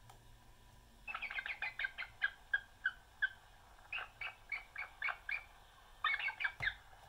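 A recorded bald eagle call played back from a sound plate on a 1979 Microsonics 300 microphonograph through its small built-in speaker. About a second in, a stuttering series of short, high cackling notes begins, quick at first and then slower, in several groups with short gaps. A single sharp click comes near the end.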